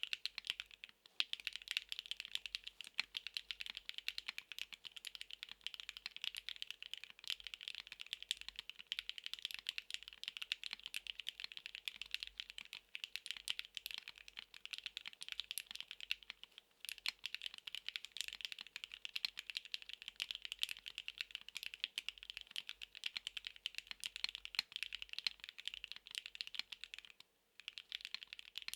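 Fast continuous typing on a NEO70 gasket-mount mechanical keyboard with HMX Glaze Jade linear switches, aluminium plate and PBT double-shot keycaps: a dense stream of crisp key clacks and bottom-outs. There are brief pauses about a second in, around the middle and near the end.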